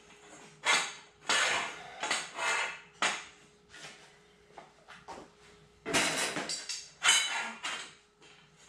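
Metal conduit pipes and corner fittings of a target stand clanking and rattling as they are fitted together and shifted by hand. Irregular knocks for the first three seconds, a quieter stretch, then another cluster of clanks about six seconds in.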